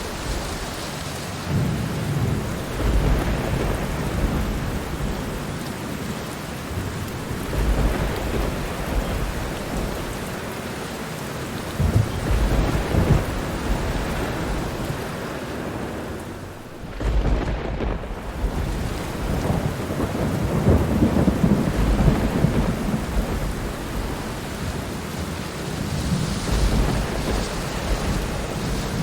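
Steady heavy rain with thunder rumbling again and again under it, several low rolls swelling and fading. The rain thins out briefly about two-thirds of the way through, then a fresh rumble comes in.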